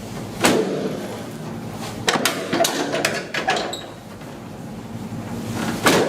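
Several sharp knocks and clicks: one about half a second in, a cluster in the middle and a loud one near the end, with rustling between them.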